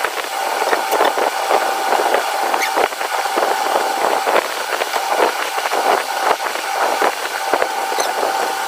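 Hands squeezing and pressing a moist mashed raw-jackfruit kabab mixture in a glass bowl, heard close up as a dense run of sticky squelches and crackles, with a faint steady tone underneath.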